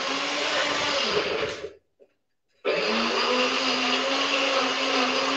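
Nutribullet high-speed blender grinding oat cakes and nuts down to a powder. It runs in two pulses, stopping briefly about two seconds in and starting again, and its motor hum rises slightly in pitch as each pulse goes on.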